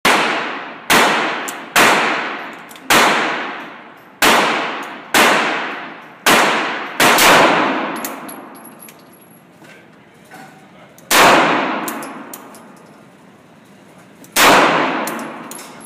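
PX9 pistol being fired, each shot followed by a long echoing tail off the range walls. Eight shots come about a second apart, then after a pause two more, about three seconds apart.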